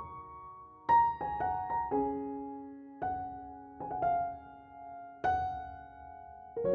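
Background music: a soft piano playing a slow run of notes and chords, each struck note ringing out and fading.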